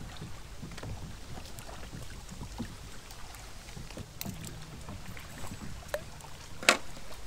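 Wind rumbling on the microphone, with scattered small clicks and knocks from handling and one sharp, loud click near the end. A faint low hum sits under it in the second half.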